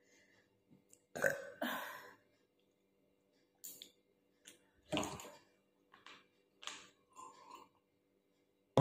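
A woman burping several times in short separate belches, the loudest two close together about a second in and another about five seconds in, with quieter ones between.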